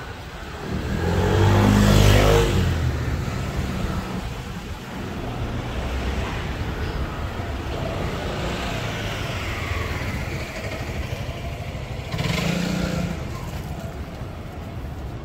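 Street traffic: a motor vehicle passes close by about two seconds in, its engine swelling and then fading, and a second, quieter one passes about twelve seconds in, with steady road noise between.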